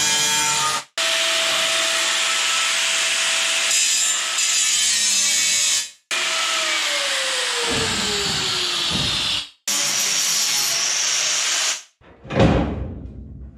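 Angle grinder grinding steel on the machine's freshly welded frame: a loud, steady grinding hiss that breaks off abruptly several times, its pitch sinking slowly in one stretch as the disc is pressed in. Near the end comes a single heavy clunk.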